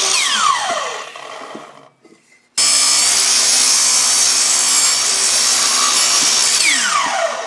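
Sliding miter saw running and cutting wood, its motor winding down with a falling whine in the first second after the trigger is let go. After a short silence it starts again suddenly, runs steadily for about four seconds, and winds down again near the end.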